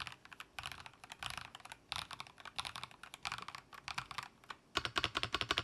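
Typing on a Geekstar JK07 mechanical keyboard with TTC speed switches, giving a high-pitched typing sound. Keystrokes come in quick runs with short pauses between them, then turn into faster, louder, unbroken typing about five seconds in.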